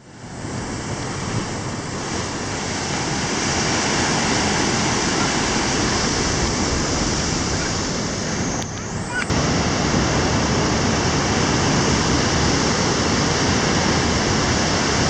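Rough, typhoon-driven surf and strong wind buffeting the microphone, a loud, steady rushing noise that fades in at the start and drops briefly about nine seconds in.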